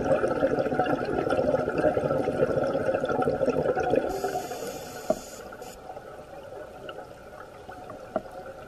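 Scuba diver's exhaled bubbles bubbling out of the regulator underwater, loud for about four seconds and then fading, followed by a short hiss of the next breath drawn through the regulator. Two short clicks come later.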